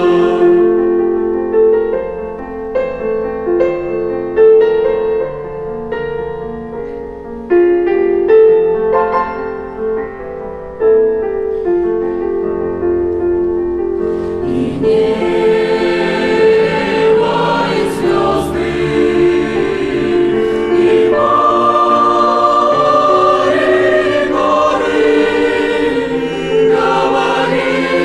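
Mixed choir singing a slow hymn in sustained chords. The sound is softer and thinner at first, then swells fuller and louder from about halfway.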